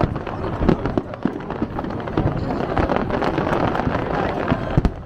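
Fireworks going off: many sharp pops and crackles at irregular intervals, with heavier bangs about a second in and near the end.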